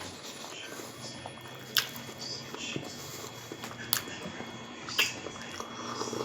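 A person chewing a mouthful of food, with wet mouth sounds and three sharp clicks or smacks spread through.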